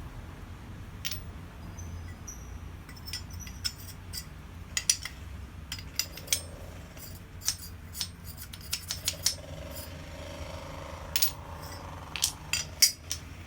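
Steel guillotine-tool prototype and its forged dies being handled: a scattered series of sharp metal clicks and clinks, bunched in clusters around the middle and towards the end, over a steady low background hum.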